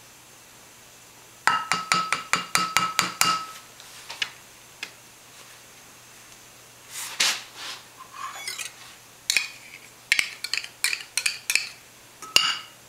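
Kitchen utensils clinking against a small bowl: a quick run of ringing taps lasting about two seconds, a brief scraping rustle, then another run of sharp clinks near the end.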